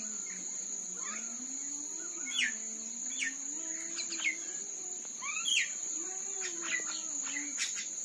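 Common mynas giving short, scattered chirps and calls, over a steady high-pitched insect drone.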